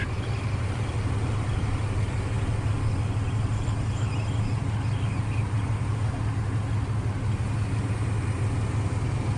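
Steady low rumble of road traffic on the Sunshine Skyway bridge, with no distinct events.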